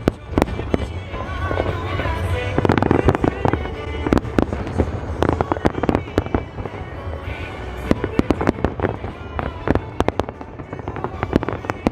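Fireworks show: many sharp bangs and crackles of bursting shells in quick, irregular succession, over music played for the show.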